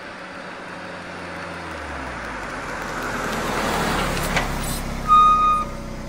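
Cars driving past, engine and tyre noise swelling as one passes close, then a short, high beep about five seconds in.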